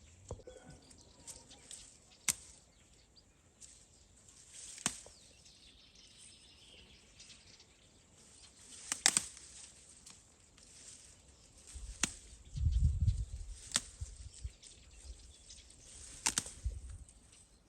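Fava bean plants being picked by hand: leafy stalks rustling, with a sharp snap every couple of seconds as pods are broken off. A low rumble comes in about two-thirds of the way through.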